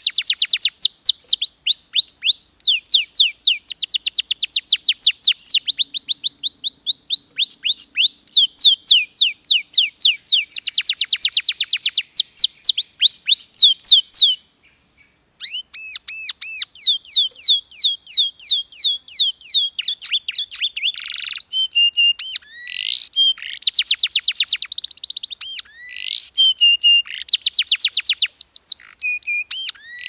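Domestic canary singing: long rolling runs of fast repeated down-slurred notes, each run changing to a new note every second or two. About halfway through the song stops for about a second, then resumes with more varied trills and short whistled notes.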